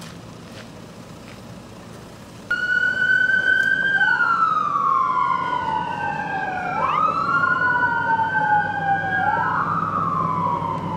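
Ambulance's electronic siren switched on about two and a half seconds in, wailing in slow falling sweeps that jump quickly back up to the top pitch, as the ambulance drives off.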